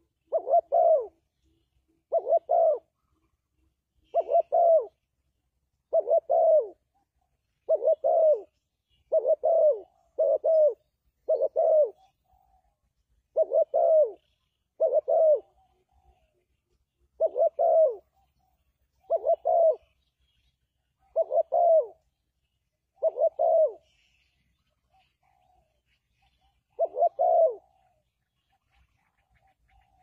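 Spotted dove cooing: a series of short, low coos that fall in pitch, repeated every one to two seconds, with a longer pause before a last coo near the end.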